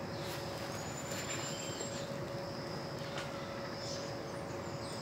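Steady outdoor background noise with a faint steady hum. A thin, high whistled call sounds once just under a second in and lasts about a second, with a few faint clicks.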